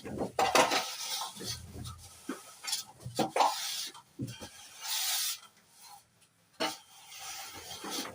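Metal plastering trowel scraping and clinking on cement mortar in irregular strokes, with a few sharp knocks.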